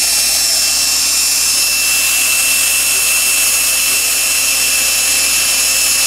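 Cordless drill running steadily at speed while drilling into a small rod, with a steady high whine.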